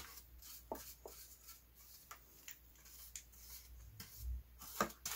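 Faint, irregular scratchy strokes of a small paintbrush brushing sealer onto the bare wood inside a model boat hull, with light clicks and a soft low bump a little before the end.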